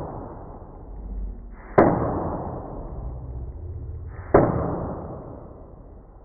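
A hammer striking a steel bicycle fender twice, a few seconds apart. Each blow is a sharp hit that rings on and dies away slowly.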